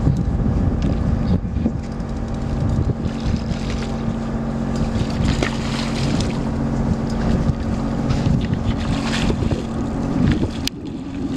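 A party fishing boat's engine running steadily with a low drone, with wind buffeting the microphone and water noise around the hull. A short sharp click sounds near the end.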